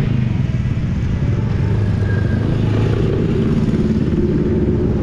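Steady engine and road noise from a moving open-air tram, with small motorcycles riding past close by.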